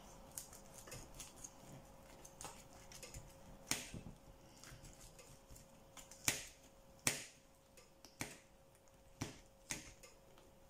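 Knife and fork clicking against a plate as roast lamb is cut: scattered sharp clicks, about six louder ones in the second half.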